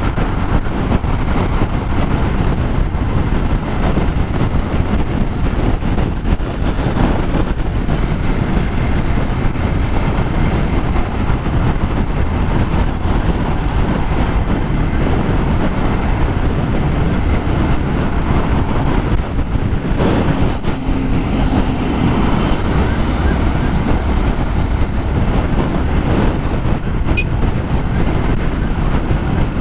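Strong wind buffeting the helmet microphone over the running noise of a Yamaha XTZ Crosser single-cylinder motorcycle being ridden along an expressway: a steady, loud rumble with no pauses.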